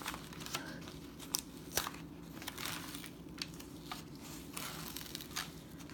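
Protective cover sheet peeled back from a diamond painting canvas's adhesive surface while the rolled canvas is handled: scattered crinkles, crackles and rustles, over a faint steady low hum.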